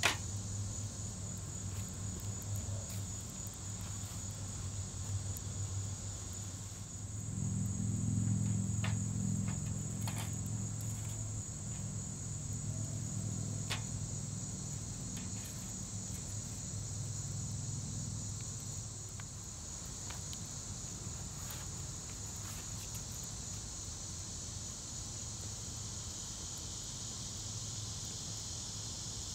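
A steady chorus of insects chirping, high-pitched and continuous, with a low hum swelling from about seven seconds in and fading away near the twentieth second. A few faint clicks are scattered through it.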